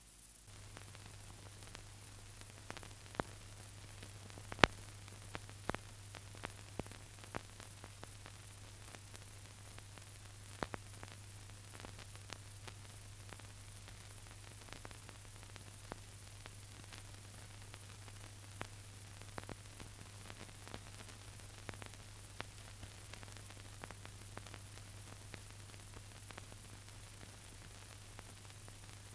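Surface noise of an old optical film soundtrack: a steady hiss with a low hum, broken by scattered clicks and pops, the loudest about five seconds in.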